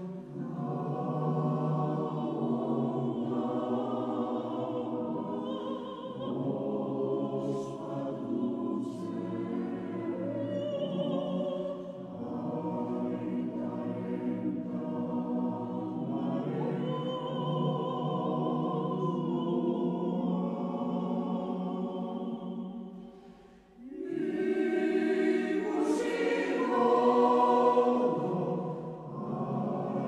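Background choral music: a choir singing long, sustained notes, which fades briefly near the end and comes back louder.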